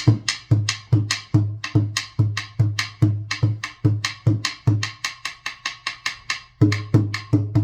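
Small hand drum (tambor) played in a steady rhythm: deep, ringing bass strokes about twice a second with lighter slaps between them, and only the light strokes for a moment about two-thirds through.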